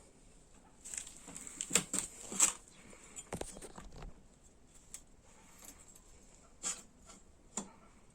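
Scattered sharp knocks and clicks of engine parts and tools being handled and set down while a motorcycle engine's top end is taken apart, the loudest two close together about two seconds in.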